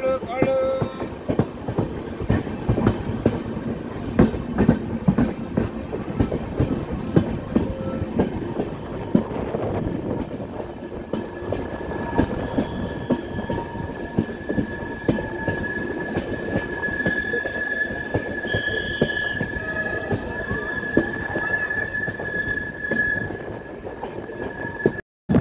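Train wheels clattering over the rail joints in a dense run of knocks. From about ten seconds in, a steady high wheel squeal joins them and fades out shortly before the end.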